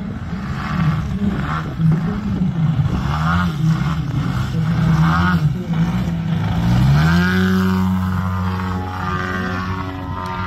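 Large aerobatic RC plane's engine and propeller. The pitch wavers up and down with the throttle as the plane hangs and rolls low over the runway. About seven seconds in the pitch rises and holds steady as the plane pulls up into a steep climb.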